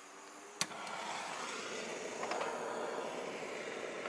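Handheld gas torch lighter ignited with a sharp click about half a second in, then its flame hisses steadily.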